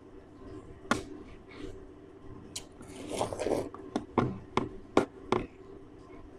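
People eating juicy watermelon flesh fast: wet biting, sucking and squelching, with a quick run of sharp clicks and smacks between about four and five and a half seconds in. A faint steady hum runs underneath.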